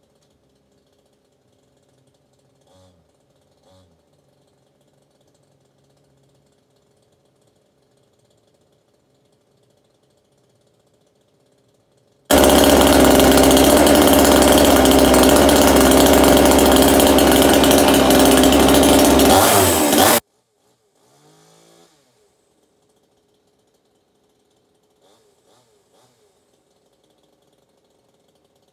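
Coocheer 62cc two-stroke chainsaw running loud and steady for about eight seconds, coming in suddenly partway through and cutting off abruptly; a new saw still breaking in.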